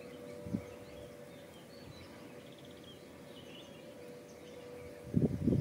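Quiet outdoor ambience: a steady faint hum with a few small bird chirps and twitters. There is a short rough thump about half a second in and a louder cluster of thumps near the end, like handling or brushing against the microphone.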